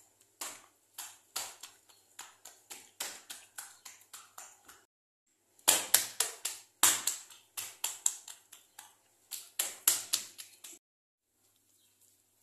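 Oiled palms patting and pressing a thin sheet of dough flat on a marble counter: short, wet slapping pats, about three a second, in two runs with a brief pause about five seconds in, the second run louder. The pats stop about a second and a half before the end.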